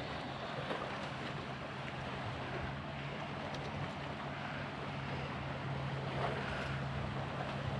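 Steady wind and water noise on a small boat on open water, with a steady low hum underneath and a few faint light clicks.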